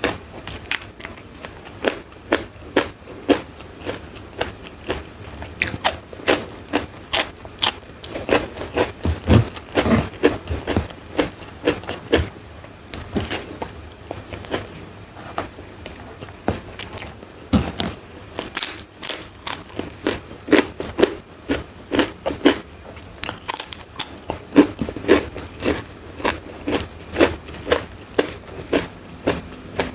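Close-miked mukbang eating: crisp food being bitten and chewed with sharp, irregular crunches, several a second, and some wetter mouth sounds between them.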